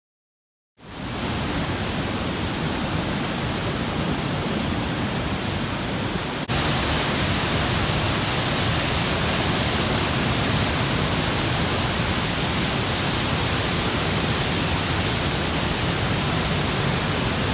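Steady roar of Niagara Falls, a dense rushing of falling water. It begins after a moment of silence, and about six seconds in it turns louder and brighter at a cut to another shot.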